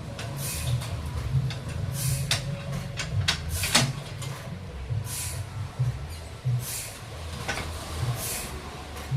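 Sawmill machinery running with a low, pulsing rumble, broken by short hissing bursts roughly every second and a half and a few sharp clicks around the middle.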